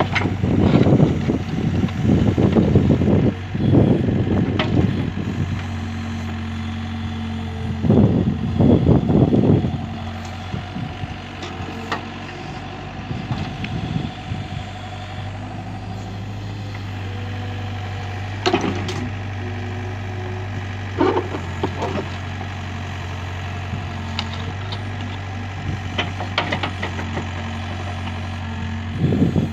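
Doosan compact excavator's diesel engine running steadily while the bucket digs. There are loud spells of soil and stones scraping and tumbling in the first few seconds and again about eight seconds in, then a few short metallic clanks.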